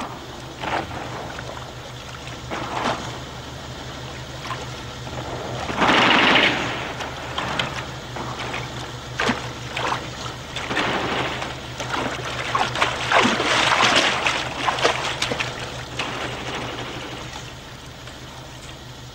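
Water splashing and sloshing as a person wades through a river, in irregular surges that are loudest about six seconds in and again around thirteen to fifteen seconds in. A steady low hum runs underneath.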